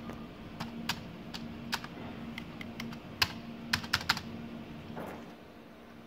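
Computer keyboard keys pressed about a dozen times in an irregular run of sharp clicks, the loudest near the end of the run, over a steady low hum.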